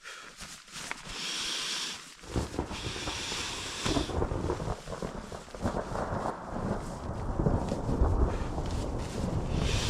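Thunder rumbling, setting in about two seconds in and growing steadily louder.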